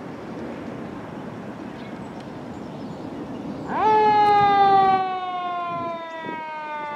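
Fire engine approaching with a low engine and road rumble. About four seconds in, its siren winds up quickly and then winds slowly down in pitch.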